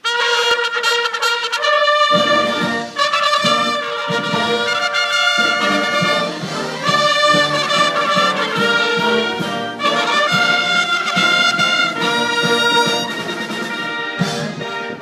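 Military band and bugles playing together, starting abruptly with high bugle-like brass notes; deeper brass of the band comes in about two seconds in, and the playing continues loud.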